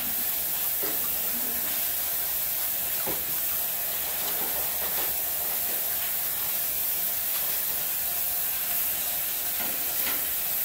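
Kitchen tap running steadily into a sink of salted water and chopped collard greens, with light splashing as hands stir the leaves.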